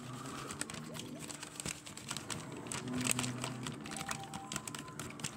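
Plastic zip-top bag holding fish fillets in hot sauce crinkling and rustling as it is handled, in many small irregular crackles.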